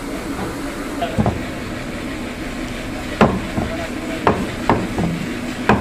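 Heavy butcher's cleaver chopping beef on a wooden log chopping block: about six sharp chops at an uneven pace, one about a second in and the loudest strokes in the second half.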